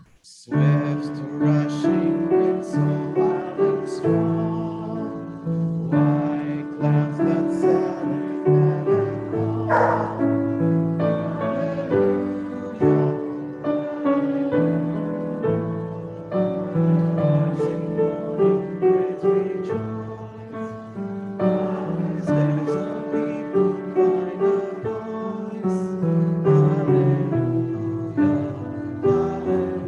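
Congregation singing a hymn to piano accompaniment.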